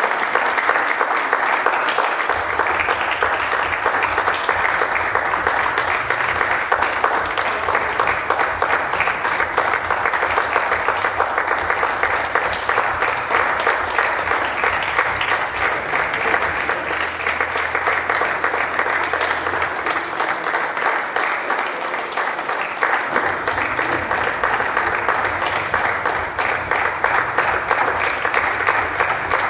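Audience applauding: continuous, dense clapping that holds steady throughout.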